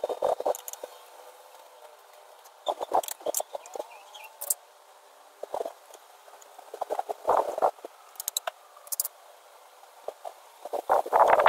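Small hand screwdriver and fingers working at a PVC pipe: short, irregular clusters of scraping and clicking, with a denser, louder run of handling noise near the end.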